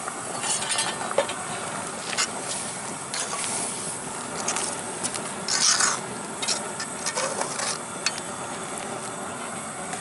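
A metal perforated ladle stirring curry in a large metal pot, scraping and clinking against the pot at irregular moments, over a steady simmering hiss. The curry has just had coconut milk poured in.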